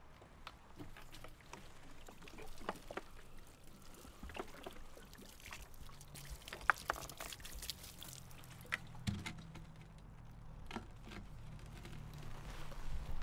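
Liquid pouring and splashing from a plastic jerrycan, broken into many short splashes and clicks, with a low steady hum under it from about halfway through.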